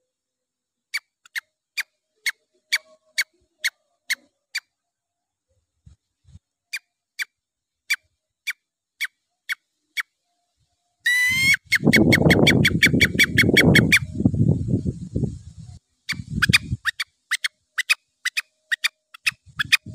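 A mouth-blown junglefowl caller imitating junglefowl calls. It gives short, sharp, high chirps, about two a second, in runs. About eleven seconds in, a rising squeal leads into a louder, rougher stretch of several seconds before the chirps resume.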